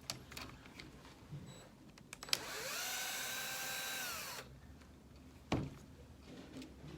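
Small cordless drill spinning up, running steadily for about two seconds and winding down, driving out a screw on an RC truck's front axle. Light clicks of small parts before it and a single sharp knock a second after it stops.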